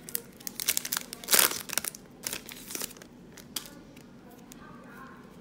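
Foil trading-card pack wrapper crinkling and cards being handled, quick crackly rustles that thin out a little over halfway through.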